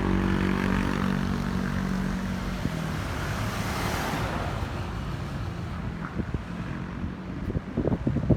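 A motor engine humming steadily, then a rushing swell as a vehicle passes, loudest about four seconds in. Gusts of wind buffet the microphone near the end.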